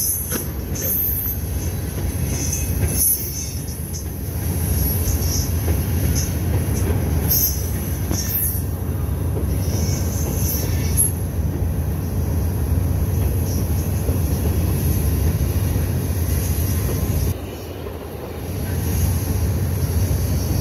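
Freight train cars rolling past on steel wheels and rail: a steady low rumble, with short high-pitched metallic squeals now and then and a brief lull about 17 seconds in.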